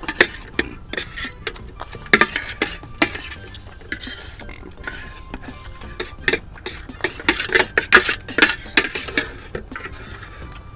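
Eating utensils scraping and clinking against bowls and plates in quick, irregular strokes as food is scooped up and eaten, with busier spells a couple of seconds in and again near the end.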